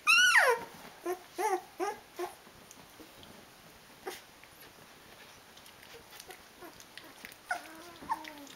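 16-day-old Rhodesian Ridgeback puppies whining and crying: one loud cry falling in pitch at the start, a few short cries over the next two seconds, then more whines near the end. These are hungry puppies calling for their mother to feed them.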